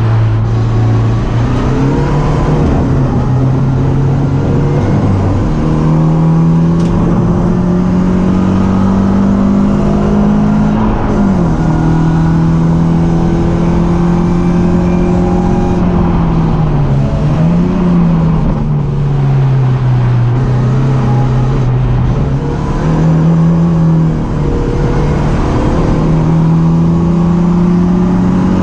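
BMW 318ti Cup race car's four-cylinder engine running hard at racing speed, its pitch climbing and falling repeatedly with throttle and gear changes, with a sudden drop in pitch about eleven seconds in.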